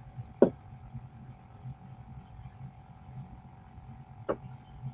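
A steady background hum over low pulsing room noise, broken by two sharp clicks: a loud one about half a second in and a fainter one near the end.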